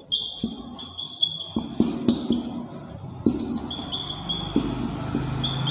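Whiteboard marker squeaking across a whiteboard in a series of short writing strokes, with light knocks as the tip meets the board.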